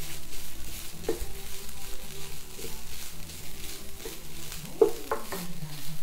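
Wooden spatula stirring and scraping diced tofu and vegetables around a non-stick frying pan in irregular strokes, over a steady sizzle of the food frying.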